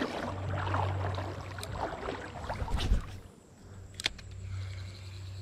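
Creek water running and splashing over a steady low rumble, with a loud knock about three seconds in. After that it goes quieter, with a single sharp click about a second later.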